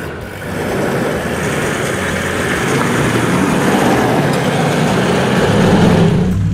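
Toyota LandCruiser 79 Series engine working hard under load, its tyres churning and spraying mud as it pulls a bogged Hilux on a kinetic recovery rope. The loud rushing of the wheels drops away shortly before the end, leaving the engine running.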